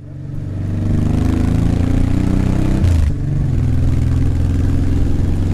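Motorcycle engine heard from on board while pulling uphill at low speed. The revs climb, dip briefly about three seconds in, then hold steady. The sound fades in over the first second.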